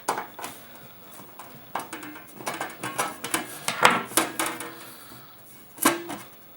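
Metal computer case being opened by hand: a string of clanks, rattles and scrapes as the side panel is worked loose and lifted off, with the loudest knocks about four seconds in and again near six seconds.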